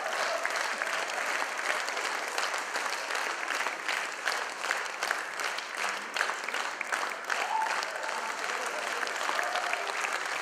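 Theatre audience applauding: many people clapping in a dense, even patter that holds steady throughout.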